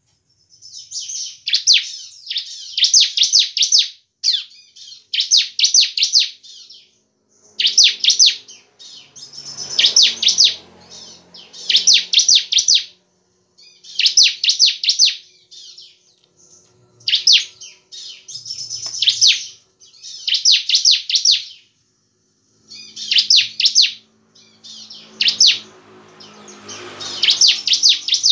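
Bar-winged prinia (ciblek) singing: short phrases of rapid, high, chattering notes, repeated about every two seconds with brief pauses between.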